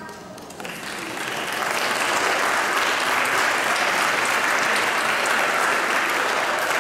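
Audience applauding. The clapping starts about half a second in and swells over the next second or so to a steady level.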